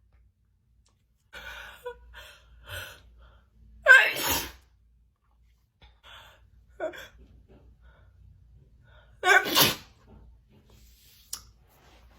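A woman in a sneezing fit: a few short gasping breaths, then a loud wet sneeze about four seconds in, two small catches of breath, and another loud sneeze in two quick parts near the end.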